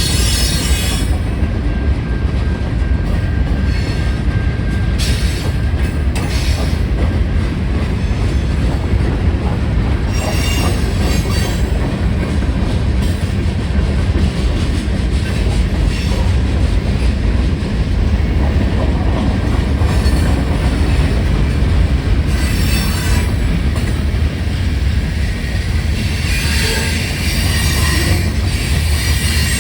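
Train rolling through a grade crossing: a steady, loud rumble of wheels on rail, with high-pitched wheel squeal that comes and goes and is strongest near the end.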